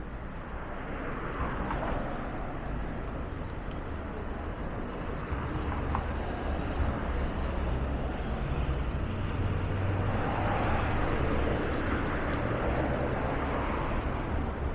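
City road traffic: cars passing with a steady low rumble of engines and tyres. It swells as a vehicle goes by about a second in, and again, longer, from about ten seconds in.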